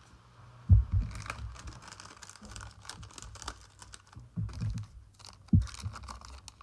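Foil football-card packs crinkling and rustling as they are handled, with several dull knocks on the table, the loudest near the start.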